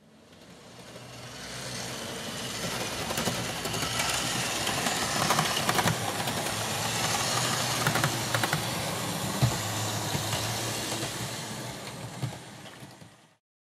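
OO gauge model diesel locomotives and coaches running past on the track: a steady motor whirr with irregular clicks of the wheels over the rail joints. It swells as the train nears and fades away near the end.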